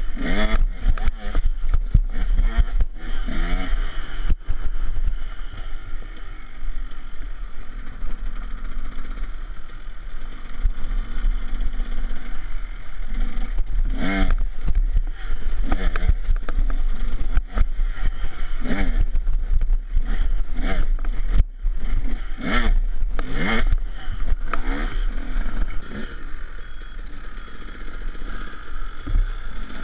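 KTM 150 SX two-stroke dirt bike engine revving up and down again and again, with sharp knocks and clatter as the bike rides over concrete blocks and rocks.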